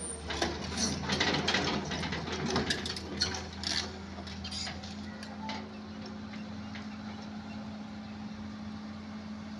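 Komatsu hydraulic excavator's diesel engine running steadily, with a rapid series of sharp metal clanks and clicks over the first four seconds as the bucket is worked during a bucket change.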